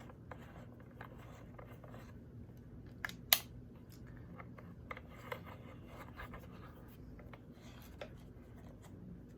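Faint handling noises from a plastic handheld air compressor being turned over in the hands: small scattered clicks and scrapes, with one sharp click about three seconds in.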